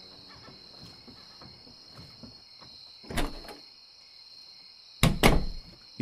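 Two heavy thunks, the first about three seconds in and a louder double one near the end, over a faint steady high-pitched chirring.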